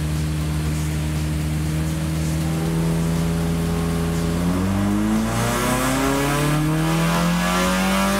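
Honda K24 four-cylinder engine in an EK Civic at full throttle on a chassis dyno during a power run. It holds a steady pitch at first, then about a third of the way in the revs start climbing smoothly and continuously toward 8,000 rpm.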